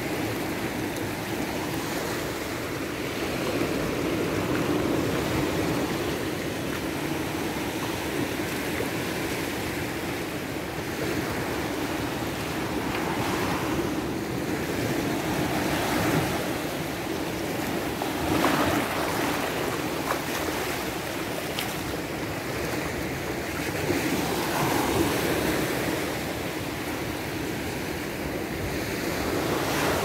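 Small sea waves breaking and washing up onto a sandy beach, a steady surf wash that swells every few seconds as each wave comes in.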